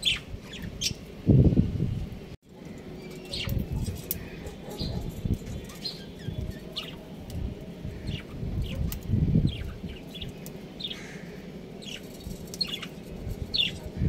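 Budgerigars chirping in short, scattered calls, over low thumps and rustling. The sound drops out briefly a little over two seconds in.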